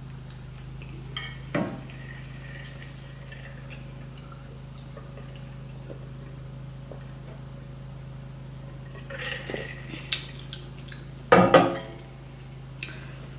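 Mukbang eating sounds: a few scattered clicks and clinks against dishes and wet mouth noises over a steady low hum. The loudest is a short voiced mouth or throat sound near the end.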